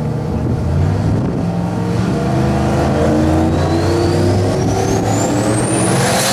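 Turbocharged 4.8-litre V8 of a drag-racing Chevrolet Silverado running at the starting line. Its engine note climbs slowly while a high turbo whine rises steadily over the last three seconds and levels off near the end, as the GT45 turbo spools up before launch.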